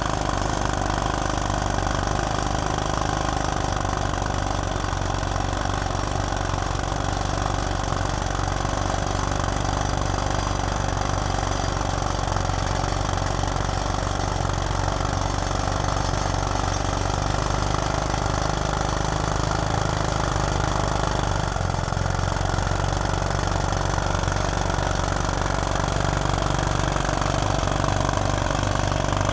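Engine of a crawler drill rig running steadily at a constant speed.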